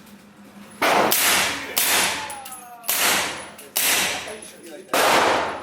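Gunshots at a shooting range: about six loud reports, roughly one a second and unevenly spaced, each trailing off in a ringing echo.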